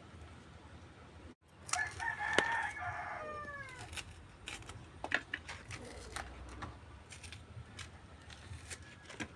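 A rooster crowing once, starting a little under two seconds in, the call ending in a falling tail. Scattered light clicks and knocks follow.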